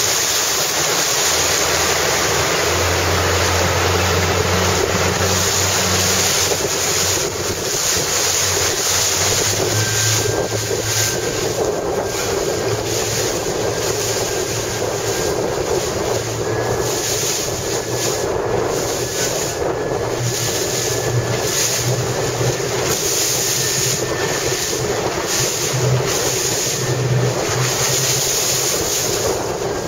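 Strong wind buffeting the microphone over the rush and slap of choppy water, with a low drone underneath.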